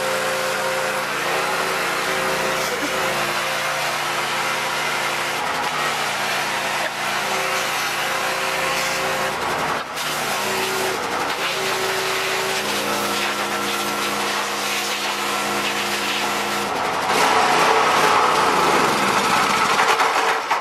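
Pressure washer running, its motor humming under the hiss of the water jet as it sprays the engine bay and thermostat housing clean. The spray gets louder about three-quarters of the way through.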